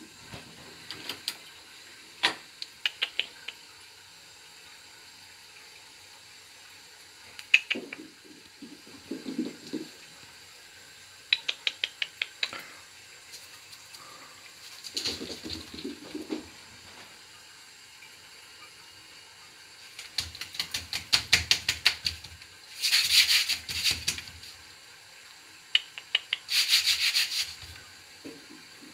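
A person calling a cat with mouth sounds: spells of rapid clicking and hissing 'pspsps' noises, coming in short bursts a few seconds apart. The longest and loudest hissing bursts come near the end.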